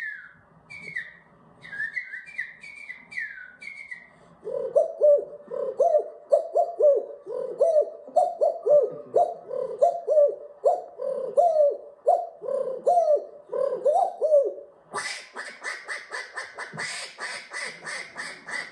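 A man imitating animal calls with his voice: a string of short, high, falling chirps, then a long run of lower, falling calls repeated about twice a second, then a faster, harsher pulsing call near the end.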